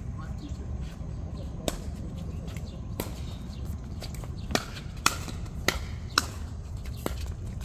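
A ball being struck back and forth in a rally: about seven sharp, irregularly spaced knocks of racket or paddle hits and bounces, over a steady low rumble.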